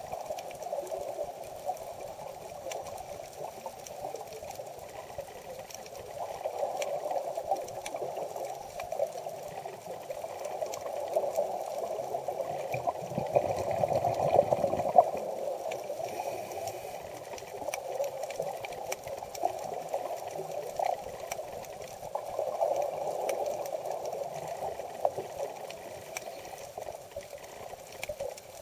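Muffled underwater sound heard through a camera housing: a steady hiss with bubbling swells from scuba divers' exhaled air. It is loudest and deepest about halfway through.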